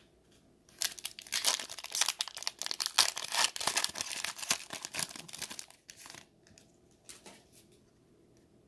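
Foil wrapper of a 2020 Panini Mosaic football card pack being torn open and crinkled by hand, a dense crackling rustle for about five seconds, then a couple of small crinkles.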